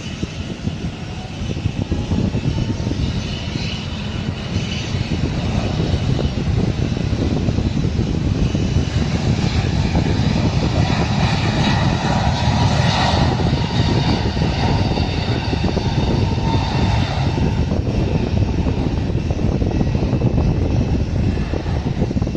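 Airbus A320's jet engines at takeoff power: a loud, steady rumble with a high whine on top, building slightly over the first few seconds.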